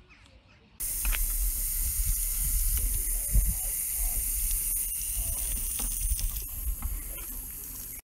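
Water spraying from a hose in a steady hiss, starting suddenly about a second in, with a low rumble of wind on the microphone under it.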